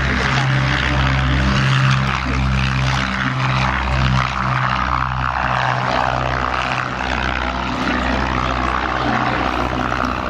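Piston engines and propellers of vintage de Havilland twin-engined biplanes droning in flight, a steady low drone that pulses in strength.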